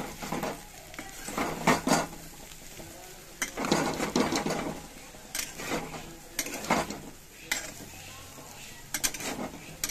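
Metal spatula scraping and clacking against a metal kadhai while stir-frying cut potatoes to mix in black pepper, in irregular strokes a second or two apart.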